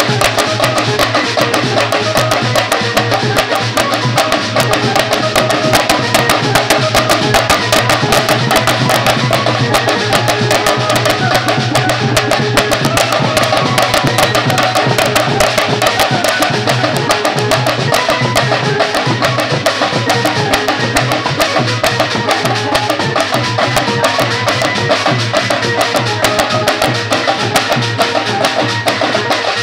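A band of stick-played hand drums, shallow round skin drums and a barrel drum, drumming a loud, fast, dense beat without a pause.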